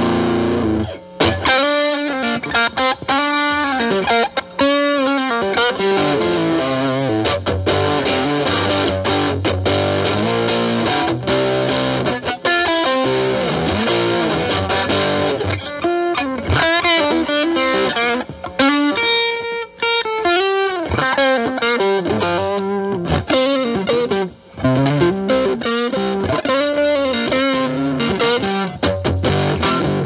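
Stratocaster electric guitar through an Electro-Harmonix Germanium 4 Big Muff Pi, its overdrive and distortion sides both on, into a Marshall Valvestate amp's clean channel: distorted lead lines with string bends and vibrato.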